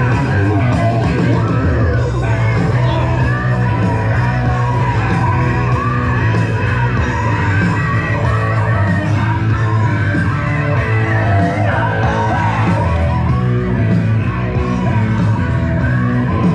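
A loud rock song with singing playing over loudspeakers, with people yelling over it.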